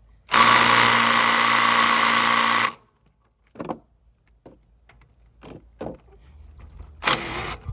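A power tool runs steadily for about two seconds, backing out a long bottom bolt of a differential back cover. A few light clinks follow, and then a second short burst from the tool near the end.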